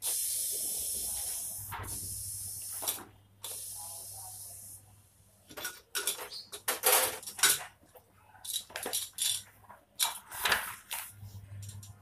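Steam hissing hard out of a pressure cooker's vent as its whistle weight is lifted off, letting out the remaining pressure: a steady high hiss for about five seconds with a short break near the middle. It is followed by a run of metal clicks and clanks as the aluminium lid is twisted open and lifted off.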